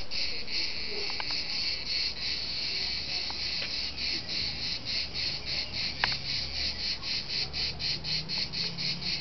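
Cicadas singing in chorus: a high buzz, steady at first, that turns into an even pulsing about four times a second after a few seconds.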